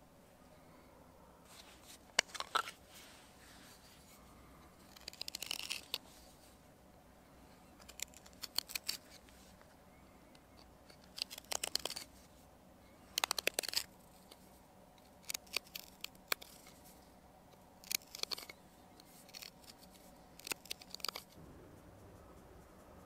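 Short, crisp scraping strokes in about eight separate bursts, a couple of seconds apart.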